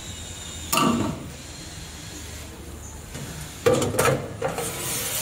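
Parts being handled and set in place on a gluing machine: a sharp clattering knock about a second in, then a longer bout of knocks and scraping over the last second and a half.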